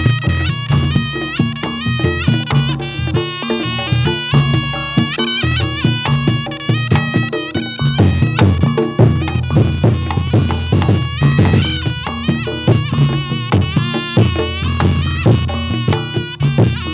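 Live Reog Ponorogo gamelan music for a jathilan dance: a slompret shawm plays a reedy, ornamented melody over drum strokes and low gong notes.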